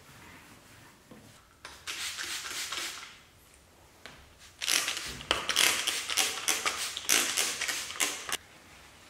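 Trigger spray bottle misting cleaner onto a leather car seat, many quick sprays in a row at about three a second through the second half. A softer, shorter hiss comes about two seconds in.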